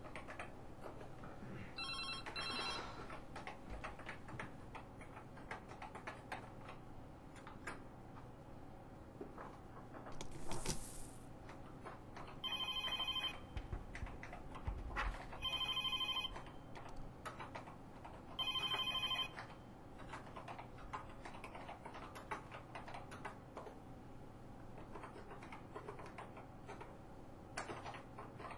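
Telephone ringing with an electronic trill: a short double ring about two seconds in, then three longer rings about three seconds apart. A short whoosh comes just before the long rings, and faint ticking runs underneath.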